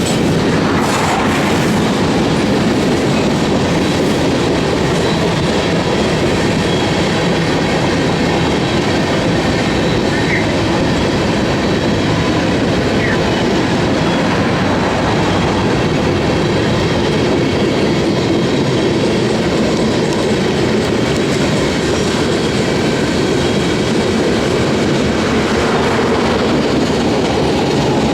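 Freight train cars rolling steadily past at close range, the wheels clattering and rumbling on the rails.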